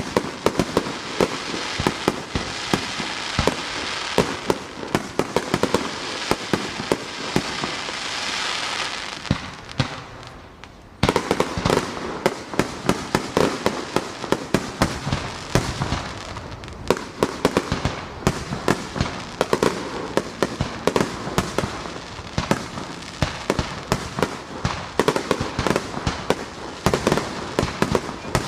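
Aerial fireworks bursting in rapid succession, a dense run of bangs and crackle several a second. The barrage fades about ten seconds in, then resumes abruptly at full strength.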